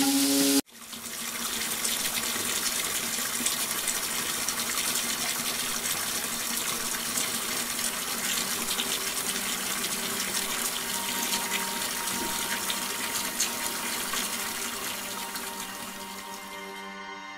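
Water running from a tap into a bathtub: a steady splashing hiss that starts abruptly about half a second in and fades near the end.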